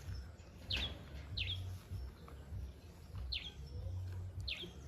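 A bird calling outdoors: about four short, high chirps, each a quick falling sweep, spaced about a second apart, over a low steady rumble.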